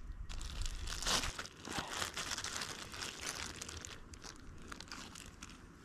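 A thin plastic bag crinkling as hands pull it out of a wet plastic food box and unwrap it. It is busiest over the first four seconds, then thins to a few scattered crackles.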